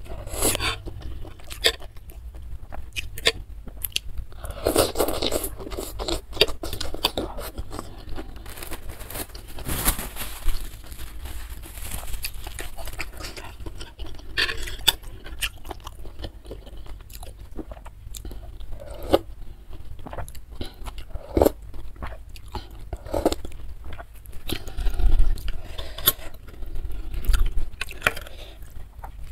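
Close-miked chewing of a mouthful of spicy instant noodles with squid, wet crunches and smacks repeating irregularly, with now and then a fork and spoon scraping and clicking in the bowl.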